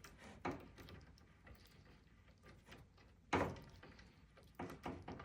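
Scattered light knocks and clicks of hand assembly: bolts, an Allen key and wooden chair parts being handled and tightened, with one louder knock a little past three seconds in and a few quick clicks near the end.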